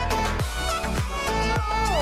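Background music with a steady beat, a little under two beats a second, under a melody line.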